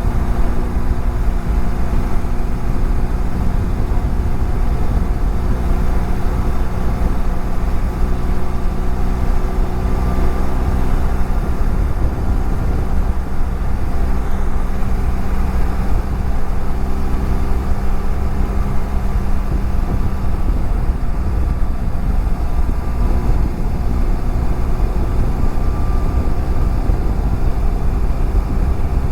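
BMW F700GS parallel-twin motorcycle engine running at a steady cruise, with wind and road rumble, heard from a helmet-mounted camera.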